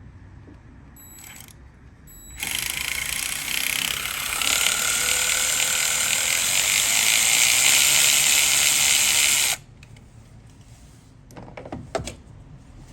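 A ratchet wrench working for about seven seconds, backing out one of the screws that hold the coil pack on the engine, then stopping suddenly; a short clatter follows near the end.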